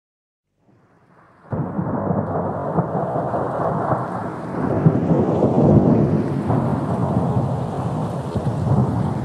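Dense rushing noise with a deep rumble. It starts faintly just under a second in, jumps to full loudness about a second and a half in, then runs on steadily, swelling a little around five seconds in.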